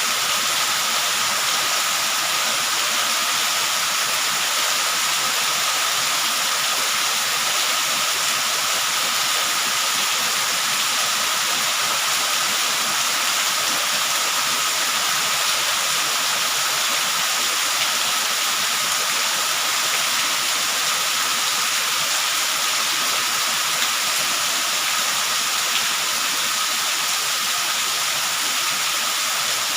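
Heavy rain falling steadily, an even hiss that does not change, with a thin steady tone running under it.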